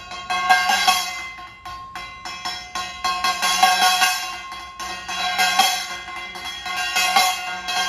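Small hand cymbals (chappa) struck and clashed in a fast rhythm, each stroke ringing metallic. The playing swells and fades every second or two.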